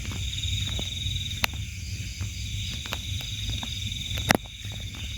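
Night chorus of insects and frogs: a steady, pulsing high trill over a low hum, with scattered light clicks and one sharper click about four seconds in.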